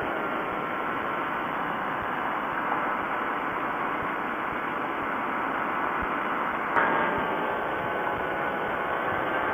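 Quicksilver ultralight's pusher engine running in flight, heard mostly as a steady rush of wind noise over the wing-mounted microphone. The sound shifts and grows louder about seven seconds in.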